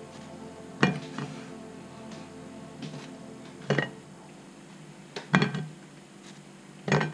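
Light knocks and clinks, a handful of separate ones a second or so apart, as baked choux puffs are lifted off a metal baking tray and set down on a ceramic plate, with soft background music underneath.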